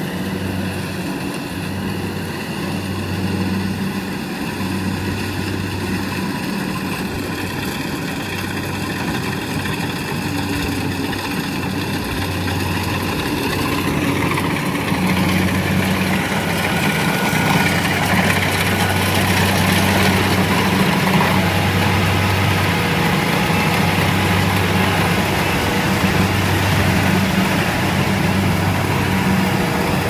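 Compact rice combine harvester running steadily while it harvests: a low, even engine hum with a broad rushing noise that grows louder about halfway through as the machine comes close.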